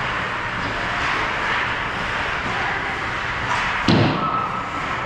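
Steady ice rink background noise with one sharp, loud thump about four seconds in.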